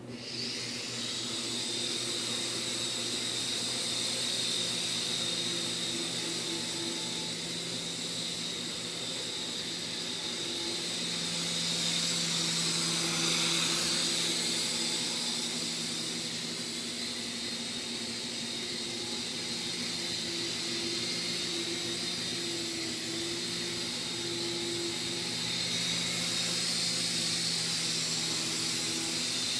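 Micro RC helicopter's small electric rotor motors starting abruptly and then running as a steady high whine in flight, growing a little louder about halfway through.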